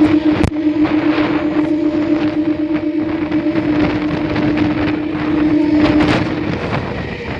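Passenger train running at speed, heard on board: steady rattle and rumble of the coaches with wind on the microphone and a steady hum that stops near the end. A single sharp click about half a second in.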